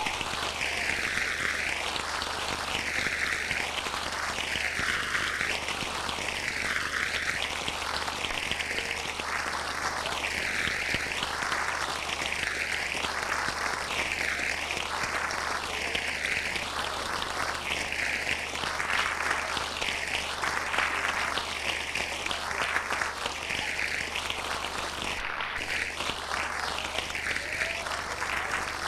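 Large audience applauding steadily, with a slow phasing swirl in the sound that repeats about every two seconds.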